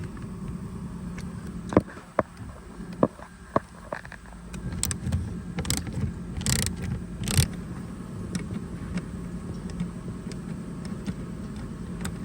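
A T25 Torx screw being undone from a plastic lower trim panel: scattered sharp clicks of the tool and fastener, then a few short scrapes and rattles, over a steady low hum.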